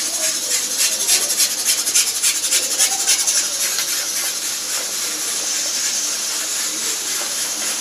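Minced-mutton kola urundai balls deep-frying in hot oil in a kadai: a steady sizzle with frequent crackles as more balls go into the oil.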